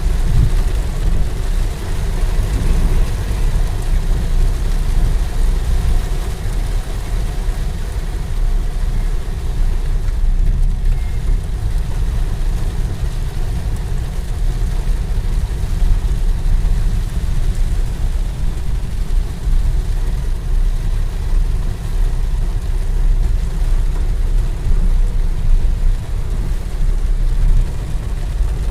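Heavy rain pouring down, under a loud, uneven deep rumble that goes on throughout.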